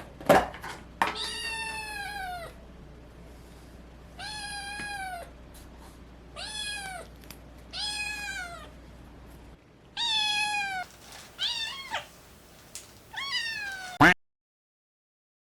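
A young house cat meowing about seven times, each meow short with a falling pitch. The owner hears this meow as the cat's voice breaking. A single sharp knock sounds near the start.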